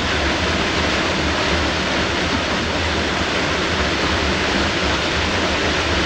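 Small waterfall pouring into a rock pool: a steady rush of falling water.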